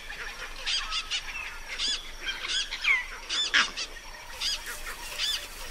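A chorus of bush animal calls, many short, high-pitched calls repeated and overlapping: alarm raised at a passing male leopard.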